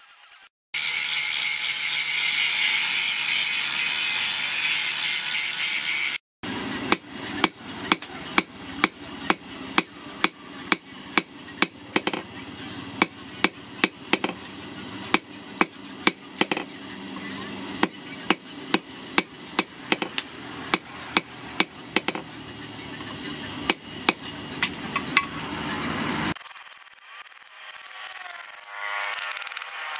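Angle grinder cutting steel, a steady high-pitched grinding for about six seconds. Then a hand hammer strikes red-hot leaf-spring steel on a steel anvil post, sharp metallic blows about one and a half a second for about twenty seconds. Near the end the blows give way to a steady hiss that slowly grows louder.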